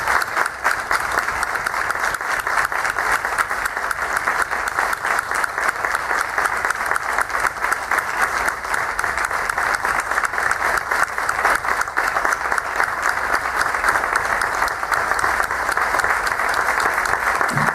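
Audience applauding: steady, dense hand-clapping that holds at an even level.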